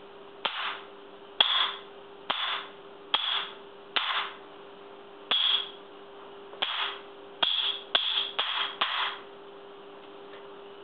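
Hammer blows on the steel head of a Prandi Yankee axe: about a dozen sharp strikes, irregularly spaced and coming faster near the end, each with a brief metallic ring. The blade has been chilled in a freezer and is being pounded where its differential heat treatment ends, to test whether the steel cracks.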